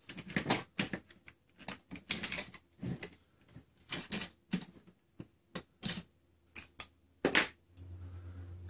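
Plastic parts of a foam-dart blaster being worked apart by hand: a string of irregular clicks, taps and light scrapes as the internal tube is prised loose. A steady low hum starts near the end.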